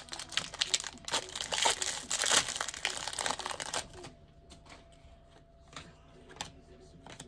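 Hockey card pack wrapper being torn open and crinkled for about four seconds, then only a few faint clicks as the cards are taken out and handled.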